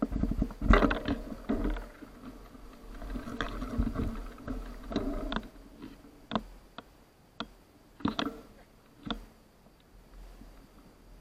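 Mountain bike rolling over a dry, leaf-strewn woodland trail, with tyres crunching and the bike rattling loudest in the first couple of seconds, then slowing to a stop. After that come a few separate sharp crackles and knocks.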